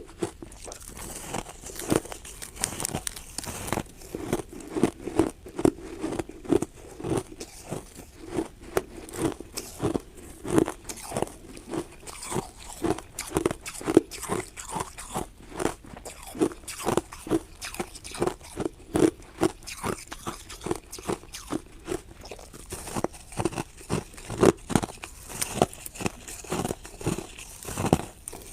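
Ice being bitten and chewed, a dense, irregular run of crisp crunches and cracks, several a second.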